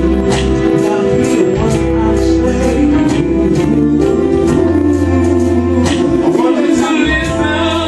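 Small gospel choir singing live with keyboard and drum kit accompaniment, with sustained chords under steady drum strikes.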